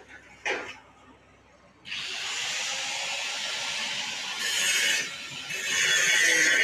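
Angle grinder working on a metal gate: after a short scrape, a steady harsh grinding hiss starts about two seconds in and runs on, swelling louder near the end.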